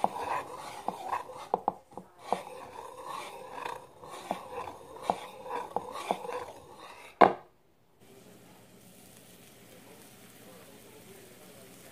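Wire whisk beating pancake batter in a bowl: rapid scraping swishes with clicks of the wires against the bowl, ending in one sharp knock about seven seconds in. After that there is only a faint steady hiss of batter cooking on a hot griddle.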